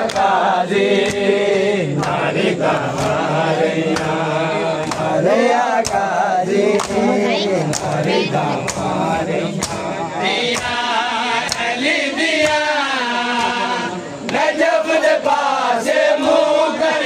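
A group of men chanting a mourning noha in unison, over steady slaps of hands striking bare chests in matam, about three slaps every two seconds.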